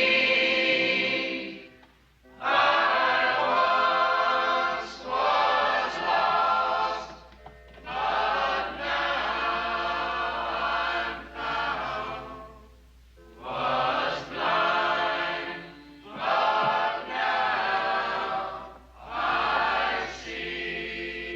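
A choir of voices singing a slow, hymn-like melody in phrases of a few seconds each, with short breaths between them.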